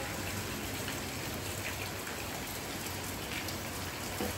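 Steady rain falling in an even hiss, with faint scattered drop ticks. The rain has eased from a downpour to a moderate fall.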